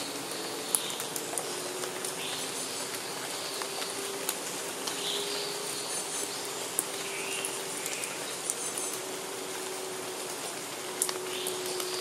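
Steady rain falling on forest foliage, with single heavy drops tapping sharply on leaves now and then, and a few short bird calls scattered through.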